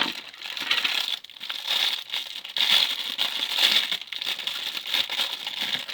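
Plastic packaging crinkling as it is handled and opened, with a continuous irregular crackle.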